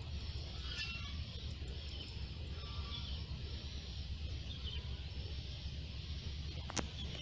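Small birds chirping a few times over a steady low rumble, with a single sharp click near the end.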